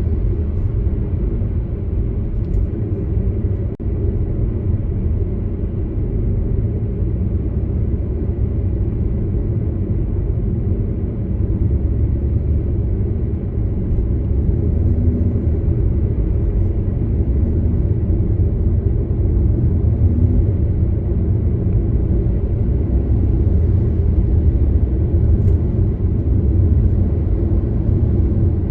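Steady low rumble of a car driving along a road: engine and tyre noise. There is a brief dropout about four seconds in.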